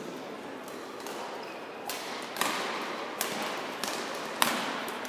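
Badminton rackets striking a shuttlecock in a quick rally: five sharp hits from about two seconds in, each echoing in the large hall, the last one the loudest.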